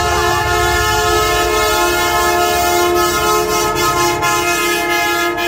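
Semi truck's air horn blowing one long, steady blast, a chord of several tones, with the truck's diesel engine running underneath.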